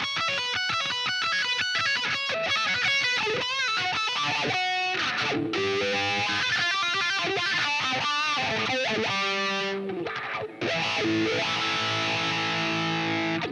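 Electric guitar, a Fender Stratocaster, played through effects pedals: fast single-note runs with bends, then sustained chords that ring out and stop abruptly at the very end.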